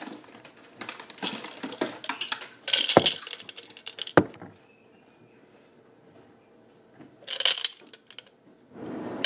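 Crackling, crunching and rustling of potato chips being pressed onto sandwiches on a counter, with two sharp knocks about three and four seconds in. After a quiet gap, a short hissing burst comes about seven and a half seconds in.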